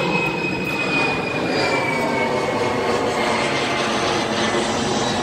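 Loud, steady engine drone with a high whine that slowly falls in pitch.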